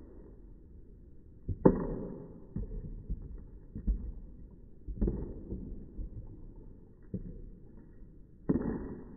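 Water flung out of a plastic bottle in quick swings, heard as three sudden whooshing splashes about 1.5, 5 and 8.5 seconds in. Smaller knocks and splashes fall between them.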